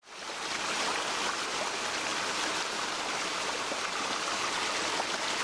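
Flowing water, a stream running with a steady rushing and trickling, fading in at the start.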